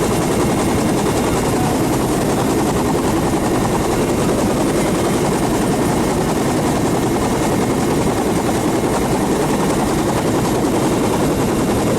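Helicopter running, a loud steady din with no let-up.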